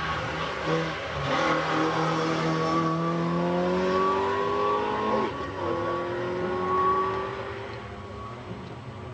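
Group A hatchback race car accelerating hard up the hill. The engine note climbs steadily in each gear, with quick upshifts that drop the pitch back, then fades near the end as the car pulls away.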